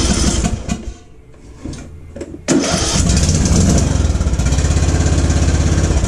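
Briggs & Stratton lawn tractor engine cranked by its electric starter in two tries: a first crank that dies away about a second in, then a second, longer crank starting about two and a half seconds in with an even pulsing rhythm. The engine is struggling to start, a case for using the choke.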